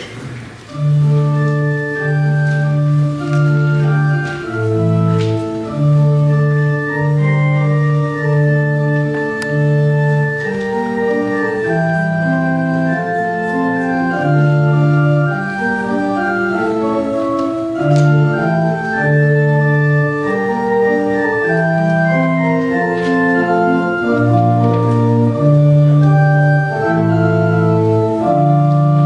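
Organ playing an Advent hymn tune in sustained chords, starting about a second in.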